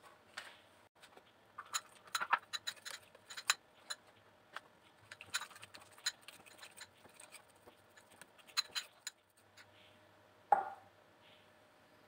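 A spoon clinking and scraping against a small glass bowl as melted milk chocolate is stirred, in quick irregular clicks, then one louder knock near the end.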